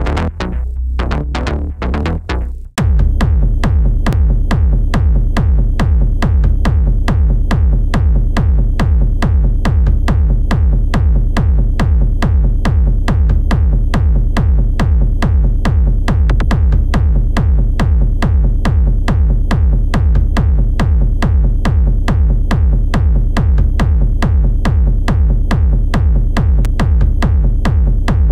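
Industrial techno music. About three seconds in, one passage cuts off and a new track starts: a steady, fast, repeating pulse with a heavy deep bass that keeps going without a break.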